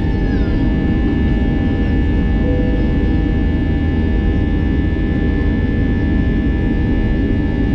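Airbus A320-200 jet engines at takeoff-climb power, heard inside the passenger cabin: a steady, loud low drone with several steady whining tones above it.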